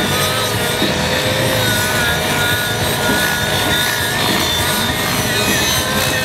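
Radio-controlled model helicopter flying aerobatics, its motor and rotor running as a loud, steady buzz whose pitch keeps wavering up and down as it manoeuvres.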